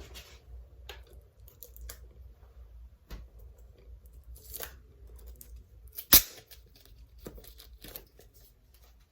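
Knife cutting and tearing at the packaging of a Blu-ray steelbook: scattered rustles, scrapes and small clicks, with one sharp, loud click about six seconds in.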